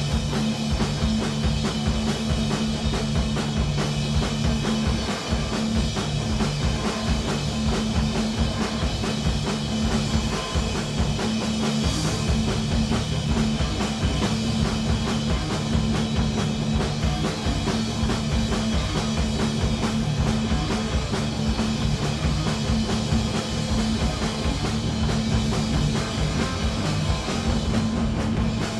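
Punk rock band playing live: distorted electric guitar, bass and drum kit, recorded from the audience.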